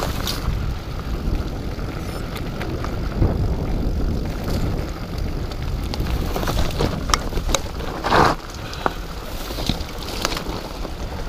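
Mountain bike descending a dirt singletrack at speed: wind rushing over the microphone and the tyres running on the dirt, with the bike rattling and knocking over bumps. A brief louder scrape about eight seconds in.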